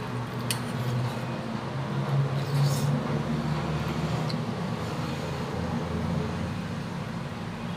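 A man chewing a mouthful of food with his mouth closed, with a few faint clicks, over a steady low background hum.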